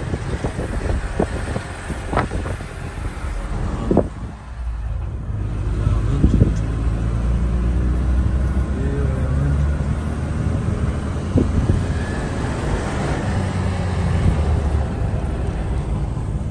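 Car driving, heard from inside the cabin: a steady low rumble of engine and tyres on the road, with a few sharp knocks in the first few seconds. It grows louder and steadier from about six seconds in.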